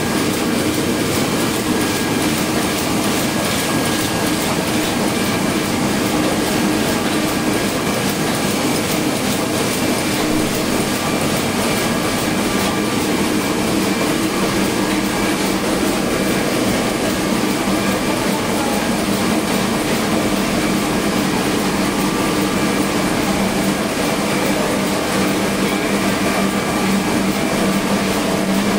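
KBA sheet-fed offset printing press running: a steady, loud mechanical noise with several constant hums underneath, unchanging throughout.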